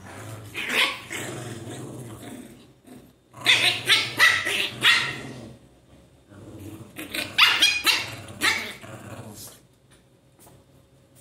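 Two small dogs play-fighting, growling and barking in three bouts, the loudest from about three to five seconds in and again around seven and a half seconds.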